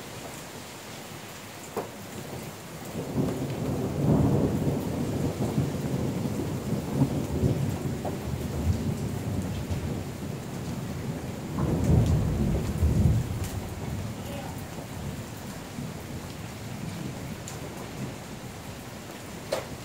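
Steady rain falling, with thunder rumbling: a long roll starting about three seconds in and a second strong one about twelve seconds in.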